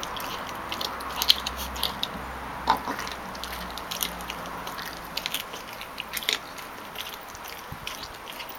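Labrador puppy chewing a raw chicken leg: irregular crunches and bites on the bone, with several sharper cracks scattered through.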